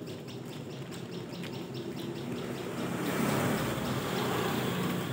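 A bird chirping quickly and repeatedly, about four or five chirps a second, over a steady engine-like hum that grows louder about halfway through.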